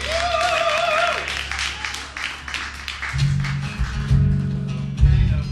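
Audience clapping with a long bending cheer in the first second or so. About three seconds in, an acoustic guitar starts playing in a steady rhythm, with strong low notes, as the next song begins.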